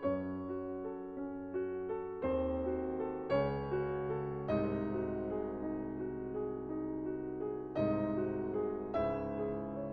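Background piano music, a slow melody of struck notes with chords underneath.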